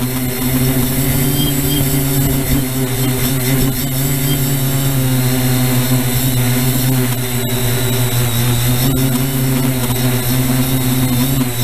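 Multirotor drone motors and propellers humming steadily in flight, a constant low drone with a hiss above it.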